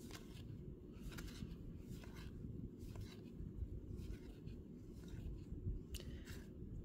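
Baseball cards sliding against one another as they are flipped one by one through a stack in the hands, a faint swish or scrape every second or so.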